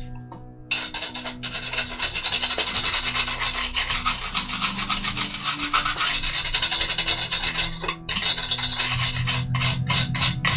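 A stiff brush scrubbing dried salt off a rust-painted plastic model tank hull in fast, scratchy strokes, with a brief pause about eight seconds in. This is the salt-weathering step: the salt mask is brushed away to reveal the rust-coloured undercoat.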